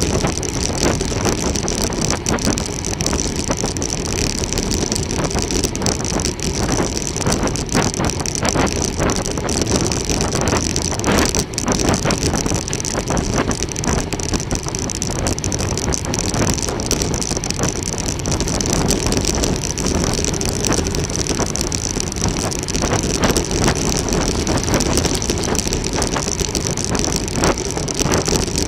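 Steady rushing noise of a road bicycle ride: wind and tyres on the road, with scattered clicks and a steady high tone.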